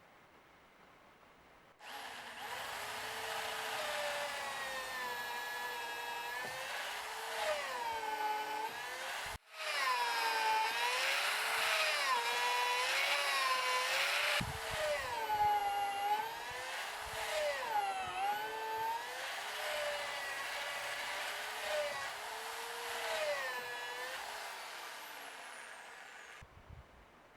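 Electric drill running in timber, its whine dipping in pitch under load and climbing back again and again as it bites and frees.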